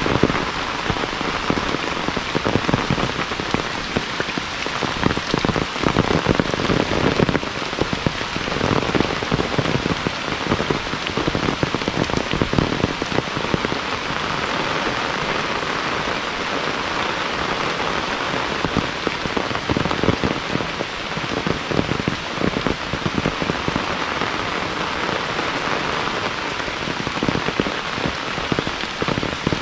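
Heavy rain pouring steadily, a dense hiss of drops with uneven low rumbles.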